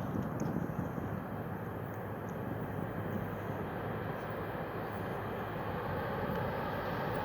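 Approaching CN freight train: a steady low diesel locomotive rumble that grows slowly louder.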